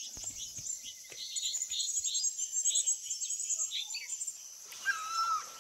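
Outdoor hillside ambience of many small birds chirping over a steady, high pulsing insect buzz that fades out near the end. Just before the end a high call starts that falls in pitch and repeats.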